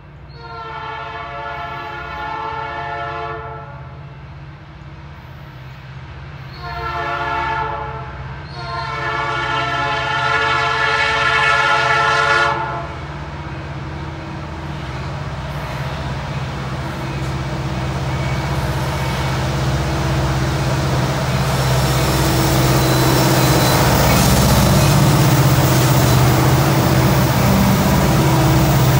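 Multi-note air horn of a CN freight train's lead locomotive, an EMD SD75I, sounding three blasts (long, short, long) as the train approaches. After that the two diesel-electric locomotives' engines grow steadily louder as they come past, with wheel and rail noise from the freight cars building toward the end.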